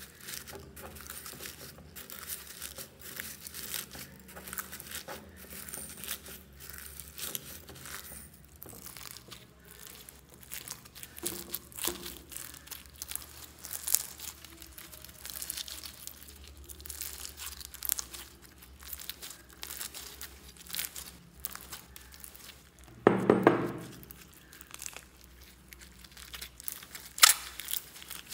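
Clear slime loaded with purple plastic beads being squeezed and kneaded by hand, giving a dense, irregular crackling and crinkling as the beads shift and the slime stretches. One louder, lower squish comes a little after two-thirds of the way through.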